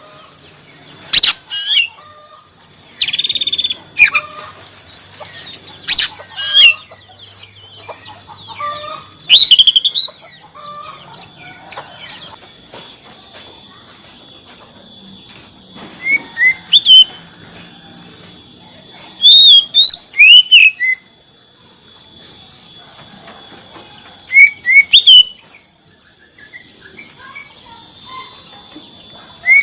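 Oriental magpie-robin calling in loud bursts of sharp, sweeping whistles and chattering notes, separated by pauses of a few seconds, with a harsh rasping burst about three seconds in.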